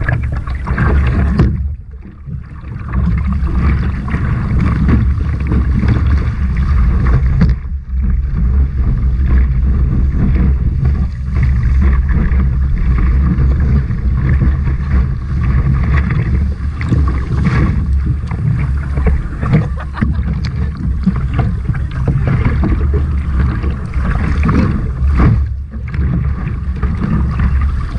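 Water rushing and splashing around a surf kayak being paddled through breaking waves, with a heavy, steady rumble of wind buffeting the kayak-mounted camera's microphone. The sound dips briefly about two seconds in.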